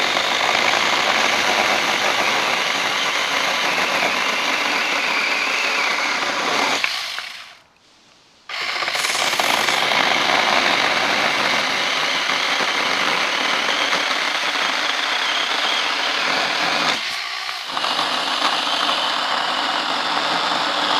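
Tingmengle 24-volt cordless mini chainsaw with a 6-inch bar running and cutting through a tree branch. It stops about seven seconds in, starts again a second and a half later, and cuts on.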